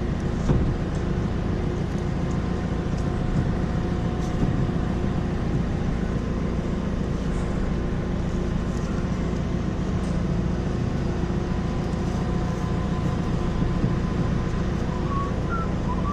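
Diesel engine of a farm tractor or loader idling steadily, with a single knock about half a second in.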